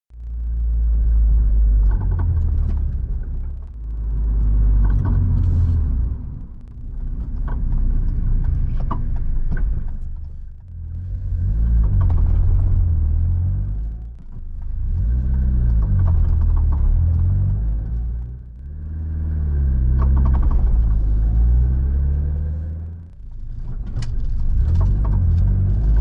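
Inside the cabin of a Mitsubishi Colt Ralliart driving slowly, a low engine and road rumble rises and falls in repeated swells. Short sharp clicks come through it from the front Wilwood Superlite brake calipers with Endless pads. These clicks happen when stopping, pulling away and turning slowly, and developed as the pads wore.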